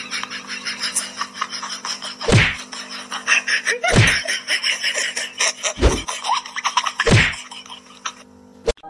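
Four heavy thumps, one to two seconds apart, over dense rapid clicking and background music, with a single sharp click near the end.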